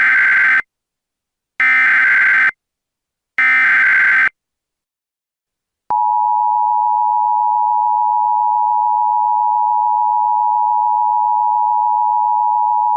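Emergency Alert System SAME header: three buzzing bursts of digital data tones, each just under a second long with a short gap between them. After a pause of about a second and a half, the two-tone EAS attention signal comes in about six seconds in and holds steady.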